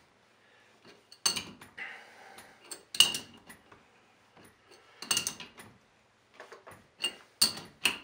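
Steel adjustable spanner clinking and scraping on the brass nut and body of a thermostatic shower valve as the cartridge nut is tightened, with a sharp metal clink every second or two.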